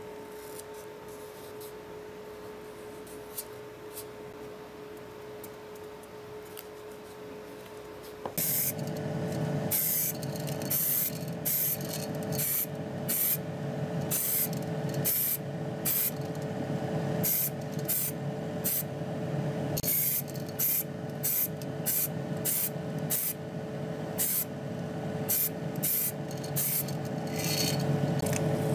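Paint being sprayed onto a diecast model car body in short, irregular hissing bursts, several a second, over a steady hum. Before that, about the first eight seconds, there are only faint small rustles and clicks of hands handling masking tape.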